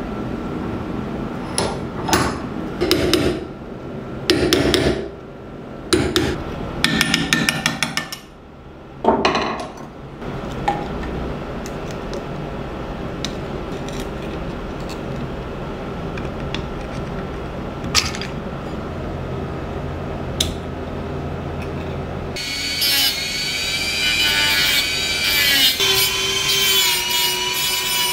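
A series of metal knocks and scrapes on a rusty steel lock case held in a vise, then a few isolated clicks. About three-quarters of the way through, a small high-speed rotary tool with a thin cut-off disc starts up. It whines as it grinds into a rivet, its pitch wavering with the load.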